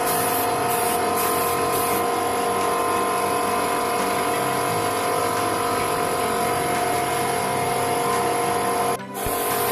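Air compressor of a spray-painting setup running with a steady whine and hiss while clear coat is being applied; the sound drops out briefly near the end.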